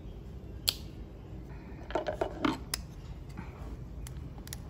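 A boiled tuber being broken open and peeled by hand: scattered sharp clicks and small cracks. About two seconds in there is a brief murmur.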